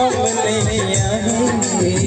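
Hindi film-style song music with a steady beat and a melody line, played loud at a live stage show.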